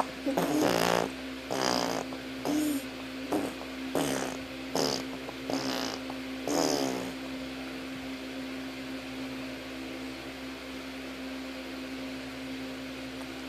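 A run of short, buzzy, fart-like mouth noises, about eight in the first seven seconds, each bending down in pitch, then they stop. A steady low hum runs underneath.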